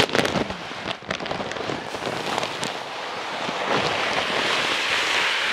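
Dry fish-feed pellets pouring from a bag into the metal hopper of an automatic fish feeder: a steady rattling hiss that builds about three seconds in, after scattered crackles of the bag being handled.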